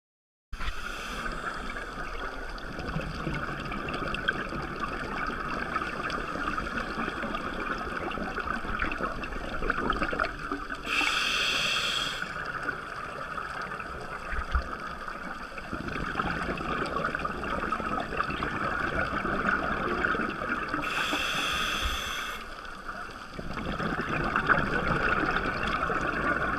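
Underwater ambience heard through a diving camera's housing: a steady muffled hiss, with two rushing bursts of a scuba diver's exhaled bubbles about ten seconds apart.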